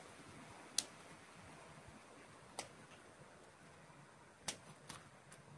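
Small pruning scissors snipping twigs and leaf sprigs off a Streblus asper bonsai: about five short, sharp clicks at uneven intervals, the loudest about a second in.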